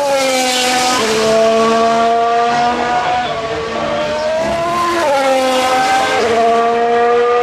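Formula 1 cars' 1.6-litre turbocharged V6 engines running at speed on the circuit. The engine note glides and steps in pitch with gear changes, dropping sharply about a second in and again near the end.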